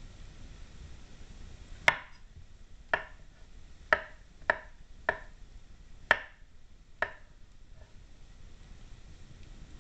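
Kitchen knife chopping mushrooms on a cutting board: seven separate sharp knocks, about one a second.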